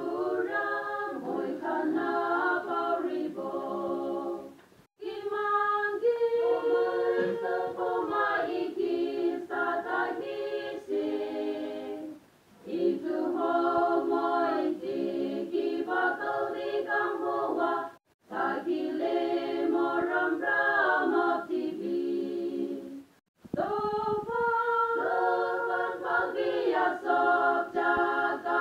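A small group of women singing together unaccompanied, a capella. They sing in phrases separated by four short pauses.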